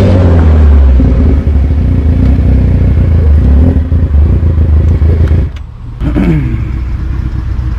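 Motorcycle engine and heavy road and wind rumble as the bike slows and rolls onto a gravel shoulder. The rumble drops off sharply about five and a half seconds in, leaving a quieter running engine.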